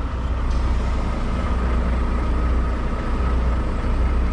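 Semi truck's diesel engine running at low speed with a steady low drone.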